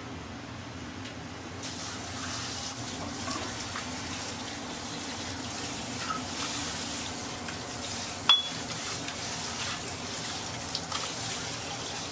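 Restaurant kitchen ambience: a steady hiss, like running water, over a low hum, with light clatter. There is one sharp clink with a brief ring about eight seconds in.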